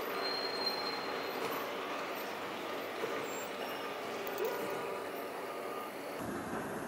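Steady background noise of a large room with a faint murmur of voices. A thin, steady high tone sounds for about the first second and a half.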